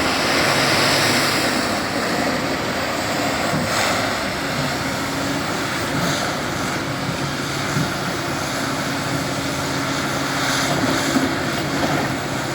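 A large diesel excavator engine running steadily, with a constant low hum under a broad hiss that may be partly wind on the microphone.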